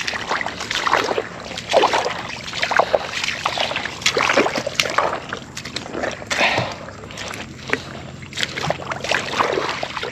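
Footsteps wading through shallow, incoming tidewater, an irregular run of splashes and sloshes.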